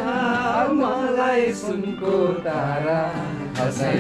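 Music: a man singing a melody over acoustic guitar accompaniment.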